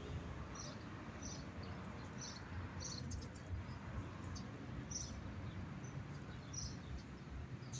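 Faint outdoor background of short, high chirps repeating irregularly about once a second, over a low, steady rumble.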